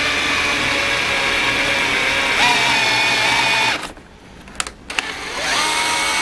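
Cordless drill running a spiral-flute tap into a hole in a steel plate, its motor whining steadily and rising in pitch partway through. It stops for about a second and a half, with a couple of light clicks, then winds back up and runs again.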